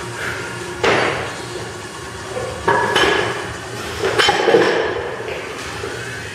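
Metallic clanks of a loaded barbell and its plates: three sharp strikes with a short ring, about a second, just under three and about four seconds in.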